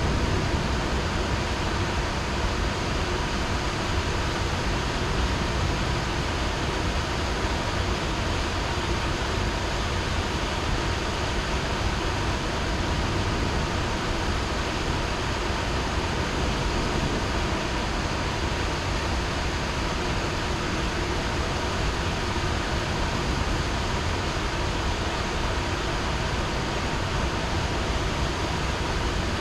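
Heavy rain falling steadily, a dense even hiss with no thunderclap standing out.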